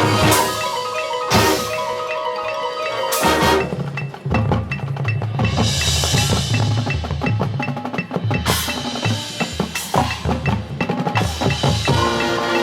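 Marching band percussion section playing: rapid drum strokes and several cymbal crashes over ringing mallet percussion such as marimba and glockenspiel.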